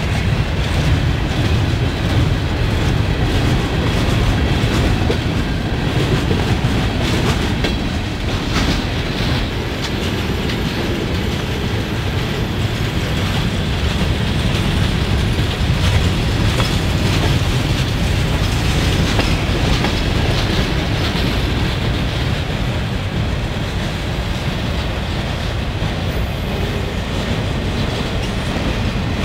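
Freight cars of a long train rolling past at close range: a steady rumble of steel wheels on the rails, with clicking as the wheels cross rail joints.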